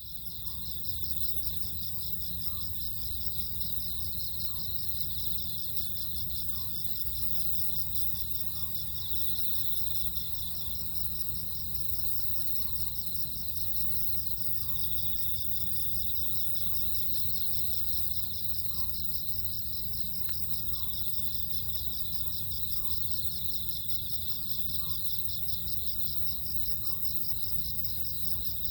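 Autumn crickets chirping in a continuous, fast pulsing high trill, with a fainter lower chirp repeating about every two seconds and a steady low rumble underneath.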